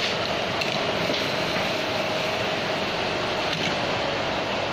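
Steady machinery noise of a brush production workshop: an even hiss with a faint steady hum and a few light clicks.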